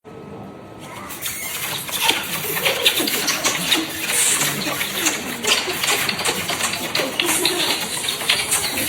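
Wet kissing: a rapid, irregular run of lip smacks and mouth noises from people making out, with breathy murmurs underneath.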